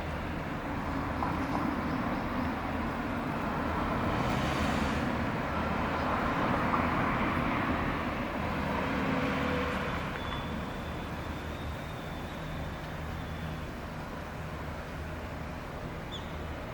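Steady low rumble of vehicle noise, swelling slightly for a few seconds in the middle.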